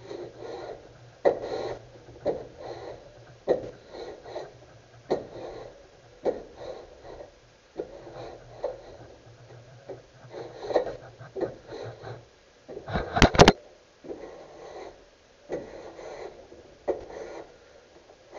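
Hand wood plane being pushed over a board in repeated strokes, about one a second, each a short shaving swish. A few sharp loud knocks about thirteen seconds in.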